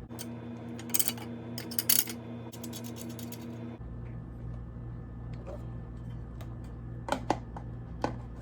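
Small metal parts of a Dillon RL 550C reloading press being handled and fitted, making light metallic clicks and taps. There are a few in quick succession early on, then single clicks near the end, over a steady low hum.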